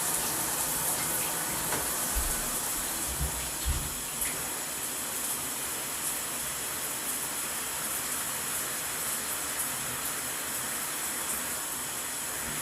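Shower running, a steady spray of water, with a couple of low thumps a little over three seconds in.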